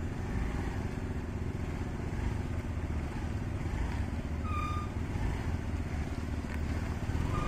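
Small motor scooter engine running steadily at low speed as the scooter creeps forward. A short high tone sounds about halfway through.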